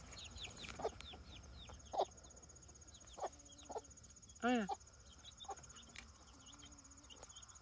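Barred Rock chicks peeping over and over in short, high, falling chirps, with a mother hen clucking now and then. Her loudest call comes about halfway through. Insects trill steadily in the background.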